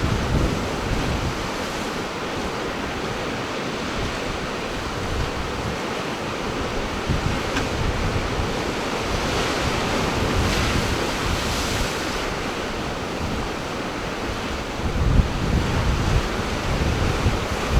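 Ocean surf washing steadily, with wind buffeting the microphone in gusts that grow stronger near the end.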